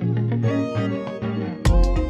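Instrumental background music with picked melodic notes; heavy beats come in near the end.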